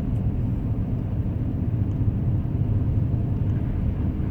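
Steady low rumble of engine and road noise inside the cabin of a 2010 Acura MDX driving at an even speed on a snowy, icy road.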